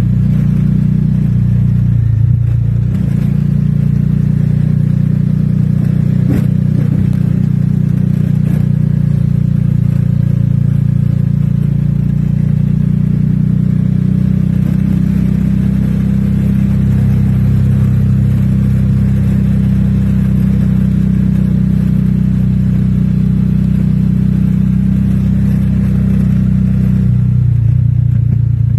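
Engine of a moving road vehicle running steadily under way, a loud low drone whose pitch dips briefly about two seconds in and again near the end, with a couple of faint knocks a few seconds in.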